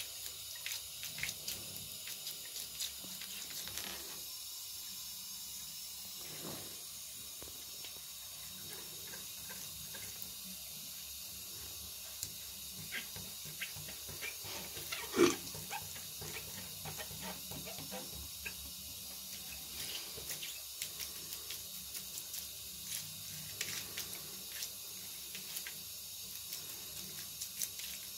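A thin stream of tap water running into a bathtub, with small irregular splashes and taps as a Cornish Rex cat paws at the stream. One louder sharp knock about fifteen seconds in.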